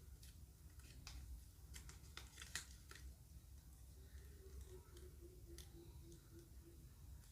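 Faint clicks and light crinkling of a Kinder Joy egg's plastic and wrapper being handled, most of them in the first three seconds. A faint pulsing tone joins in from about four seconds in.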